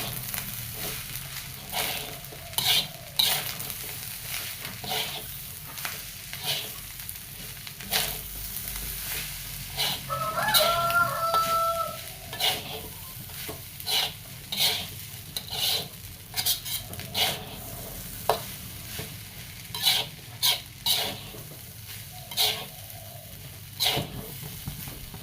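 Fried rice sizzling in a pan while a spatula repeatedly scrapes and knocks against the pan as it is stirred. A rooster crows once, about ten seconds in.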